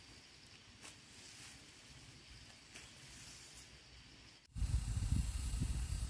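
Faint rustling of grass and weeds being pulled by hand, over a steady soft hiss. About four and a half seconds in, the sound cuts abruptly to a loud, gusting low rumble of wind buffeting the microphone.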